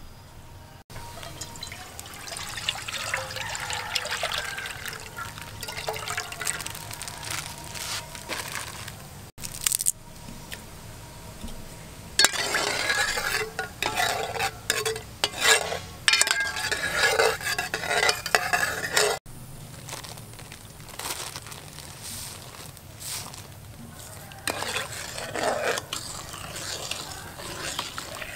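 A metal ladle stirring coconut milk in an aluminium pot, the ladle clinking and scraping against the pot over the sloshing liquid. It comes in several stretches that stop and start abruptly.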